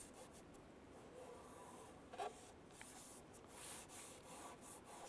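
Faint rubbing and handling of a double-sided adhesive pad being pressed into place on a side-mirror base by hand, with one light tap about two seconds in.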